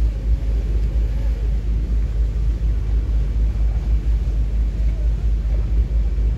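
Fairline motor boat under way: a steady low rumble of engine drone mixed with wind and water noise.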